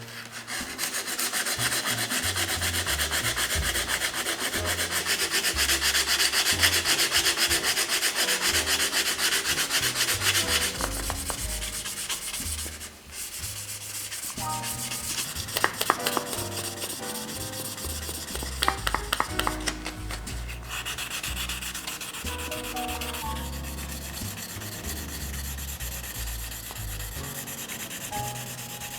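Abrasive rubbing on an aluminium motorcycle silencer: quick back-and-forth sanding strokes that scrape steadily. The strokes are hardest for the first ten seconds, stop briefly around the middle, then go on lighter.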